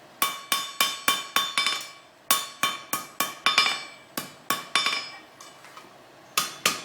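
Blacksmith's hand hammer striking hot iron on an anvil, each blow leaving a bright metallic ring. The blows come in quick runs of about three a second, with short pauses between runs.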